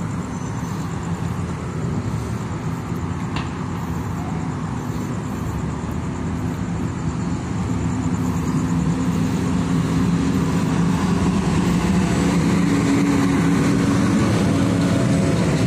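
Heavy truck engine running as a large truck pulling a long low trailer drives past, with a steady low drone over traffic noise. It grows louder through the second half as the truck comes alongside.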